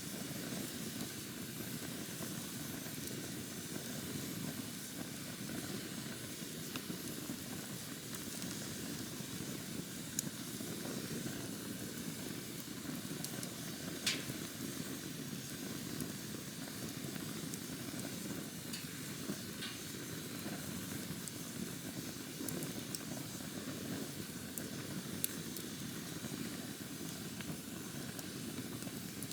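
Campfire burning: a steady low rush of flames under a faint hiss, with a few scattered sharp crackles and pops, the strongest about halfway through.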